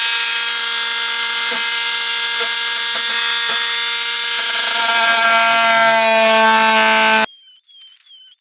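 Power drill with a hole saw running steadily as it cuts a round hole through the plastic wall of a resin storage shed. Its whine sags slightly in pitch as the saw bites, then stops abruptly about seven seconds in.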